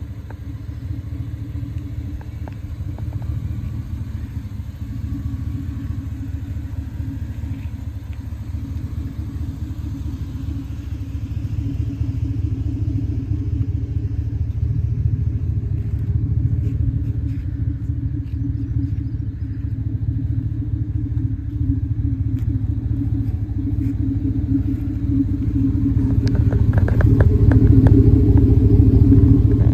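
A 2005 Chevy Silverado's 5.3-litre V8 idling steadily through a Flowmaster 10 Series exhaust: a deep, even rumble. It grows louder toward the end, heard up close at the dual tailpipe tips.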